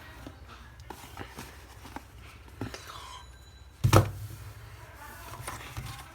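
Handling noise from unboxing puzzle cubes: scattered light clicks and taps of boxes and packaging, with one loud thump about four seconds in.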